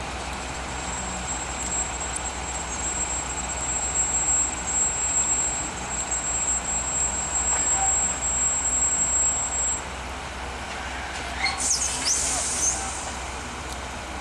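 Catenary-installation work train running: a low steady hum under a thin, steady high-pitched squeal that stops about ten seconds in, then a short burst of higher squealing about two seconds later.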